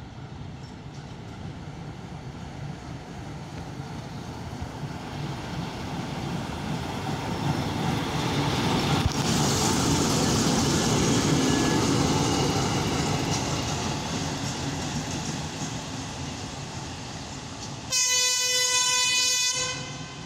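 ChME3 diesel shunting locomotive, with its six-cylinder ČKD diesel, running light past: engine and wheel noise grow louder to a peak about halfway through, then fade as it moves away. Near the end comes a single horn blast on one steady pitch, about a second and a half long, cut off sharply.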